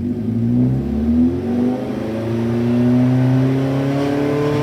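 Honda S800's 791 cc DOHC inline-four engine revving up, its pitch climbing over about three seconds with brief dips about one and two seconds in.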